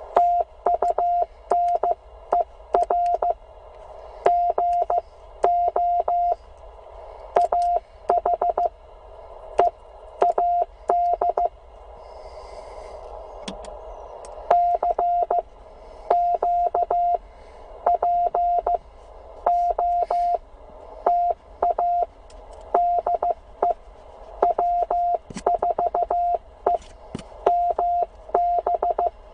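Morse code (CW) from a Penntek TR45L ham transceiver: a single steady tone keyed in dots and dashes over receiver hiss, with clicks at the keying edges. It sends in groups, with a pause of about two seconds midway.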